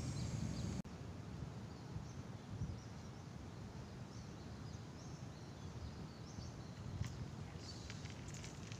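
Rural outdoor ambience: small birds chirping here and there over a low background rumble, which drops suddenly less than a second in. A few faint clicks near the end.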